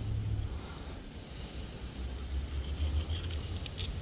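Low, uneven rumble of wind buffeting the microphone, with a few faint clicks near the end.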